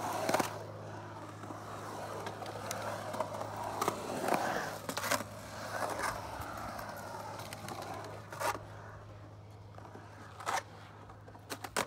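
Skateboard wheels rolling and carving around a concrete bowl, louder in the middle stretch, broken by several sharp clacks from the board. A low steady hum runs underneath.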